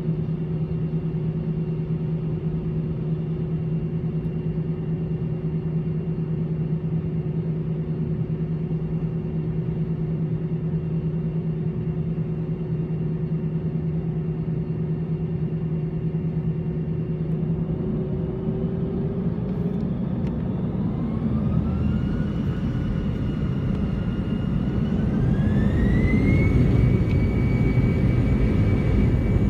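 Airbus A318's CFM56 turbofan engines, heard from inside the cabin beside the wing. They first run at a steady idle hum, then spool up as a rising whine that climbs in two steps and gets louder near the end, as power is set for a reduced-thrust takeoff.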